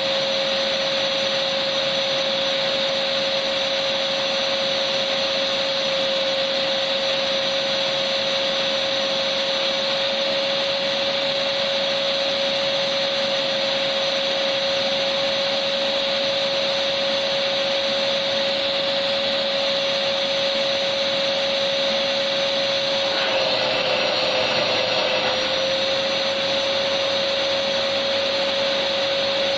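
Electric vacuum cleaner running continuously: a steady motor whine over a dense rush of air. About two-thirds of the way through the whine drops slightly in pitch and the airflow turns rougher for a couple of seconds, then it settles back.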